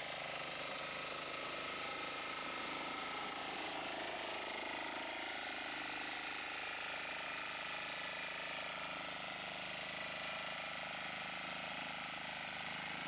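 Kalis power weeder's 5 hp Greaves Cotton single-cylinder diesel engine running steadily and faintly while its front rotavator tills the soil.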